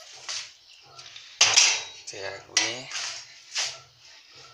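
Kitchenware clattering and scraping in a stainless steel sink: a series of knocks, the loudest about a second and a half in.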